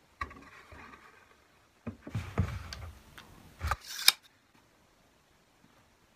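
Handling noises on a wooden workbench. A wooden cabinet door slides and is knocked down on the bench, then there is a sharp metal click as a cabinet hinge is laid on it.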